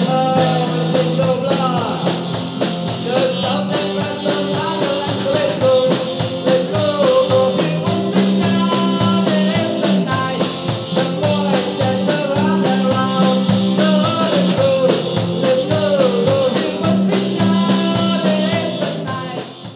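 A rock band playing live: a man singing over acoustic guitar, electric bass and drums keeping a steady beat. The music fades out near the end.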